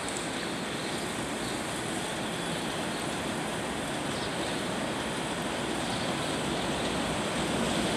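R68A subway train approaching on the elevated track: a steady distant rumble that slowly grows louder.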